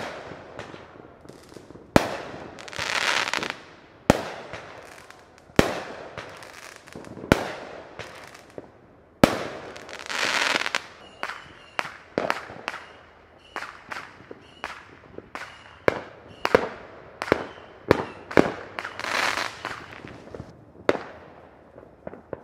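Consumer fireworks set off by neighbours: a string of sharp bangs every second or two, each trailing off, with three longer rushing hisses about 3, 10 and 19 seconds in.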